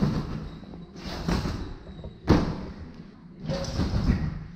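Someone bouncing on a gymnastics trampoline: a thudding landing on the bed about once a second, each with a short rushing swell.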